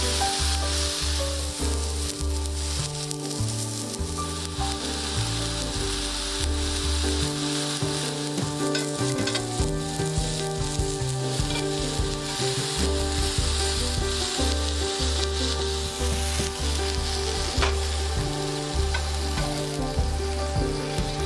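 Lamb steak frying in a cast-iron skillet, a steady sizzle.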